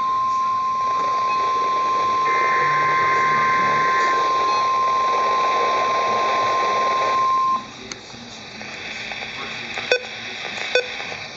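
NOAA Weather Radio 1050 Hz warning alert tone, signalling an emergency alert broadcast: one steady high-pitched tone that cuts off about seven and a half seconds in. It leaves faint radio hiss with a couple of small clicks.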